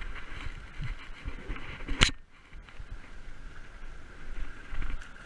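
Wind on the microphone and surf washing against jetty rocks, with one sharp knock about two seconds in.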